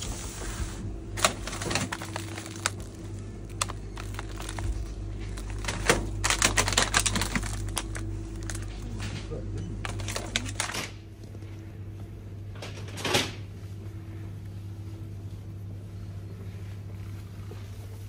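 Bursts of clicking and crinkling from plastic food packages being handled, over a low steady hum. The handling is busiest in the middle and thins out after about eleven seconds, with one more brief rattle a couple of seconds later.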